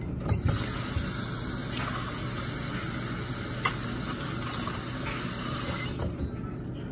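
Water from a kitchen faucet running into a bowl, filling it; the flow stops about six seconds in.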